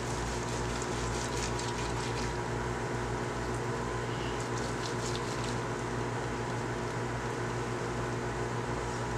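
Steady, even room hum with a few fixed tones, with faint light clicks of a knife and fork working through roast pork shoulder, twice in short spells.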